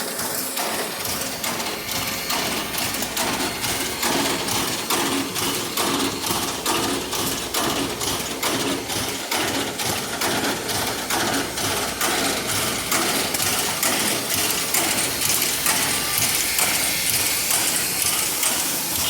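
Passenger train hauled by the steam locomotive Southern 4501 on the move: a steady, fast rhythmic clatter of evenly repeating clicks, a little louder toward the end.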